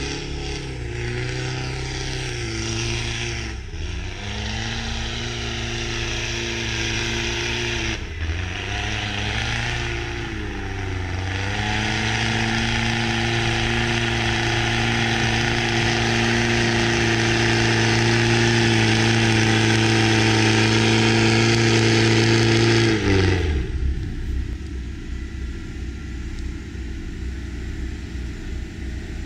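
Jeep Wrangler JK Rubicon engine revving hard as its tyres spin and churn through deep snow. The revs drop and climb again a few times, then hold high for about ten seconds under a loud hiss of spinning tyres and spraying snow, growing louder. It cuts off suddenly, leaving only a low rumble.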